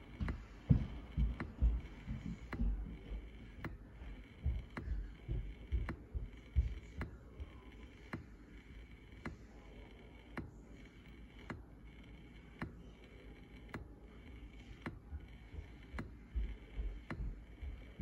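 Low, irregular thumps and knocks, heaviest in the first few seconds and again near the end, over a faint click that repeats about once a second.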